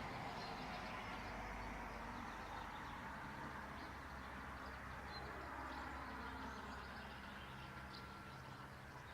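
A low engine hum with a steady drone, fading slowly away, and faint bird chirps over it.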